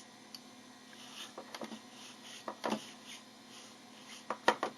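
Faint steady low hum with a quick run of three sharp clicks near the end.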